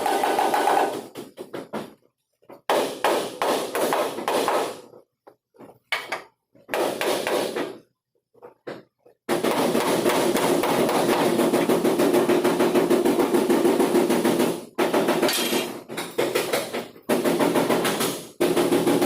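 Rapid, repeated hammer blows on metal bodywork, as in panel beating on a dented truck body. The blows come in bursts lasting from about one second to five seconds, broken by sudden silences.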